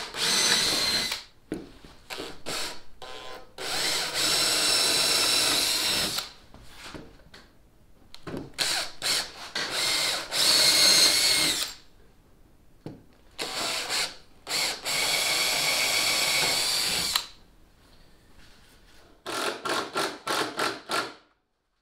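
Cordless drill boring angled pilot holes through plywood, with a high motor whine in runs of one to two seconds between short pauses, ending in a quick string of about six short trigger blips.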